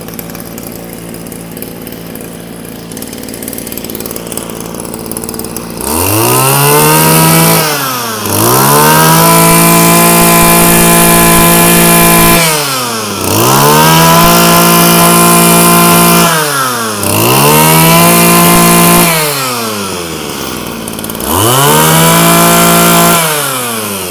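Mitsubishi TL20 20cc two-stroke brush-cutter engine idling just after starting, then revved to high speed five times, each rev held for two to four seconds before dropping back to idle.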